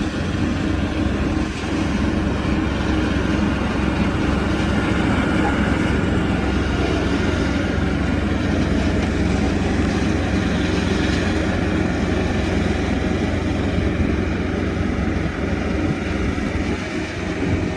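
Corn harvester running steadily, a constant engine drone.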